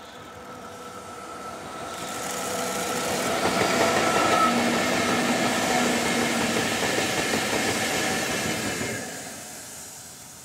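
Four coupled EF64-1000 DC electric locomotives running light past the listener: a steady whine grows as they approach, a loud rumble and rattle of wheels on rail lasts about five seconds as they pass, then it fades quickly.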